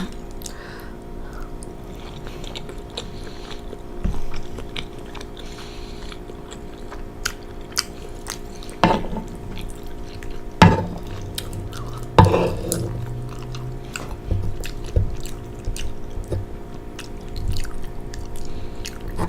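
Close-miked chewing and wet mouth clicks of a person eating penne pasta, with three louder mouth sounds near the middle.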